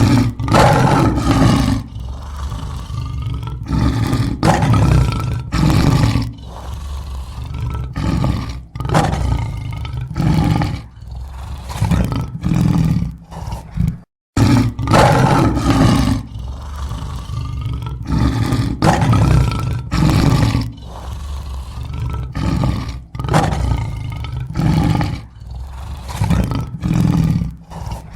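Lion roaring: a long, loud opening roar followed by a run of shorter roars about a second apart. The whole bout plays twice, with a brief silent break in the middle.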